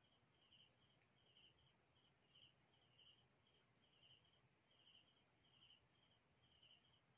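Near silence with faint night insects chirping in short, evenly repeated pulses over a steady high-pitched tone.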